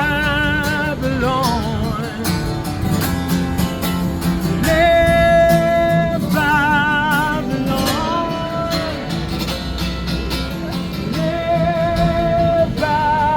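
A singer holding long notes, several with a wavering vibrato, over an acoustic guitar accompaniment, at the close of a live sing-along song.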